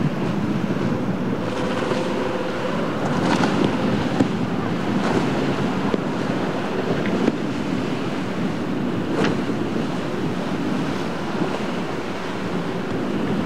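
Surf breaking and rushing, with wind buffeting the microphone and the twin Mercury outboard engines of a center-console boat running underneath as it crosses the waves.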